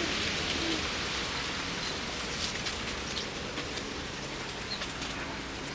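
Steady hiss of rain falling, with scattered faint drop ticks.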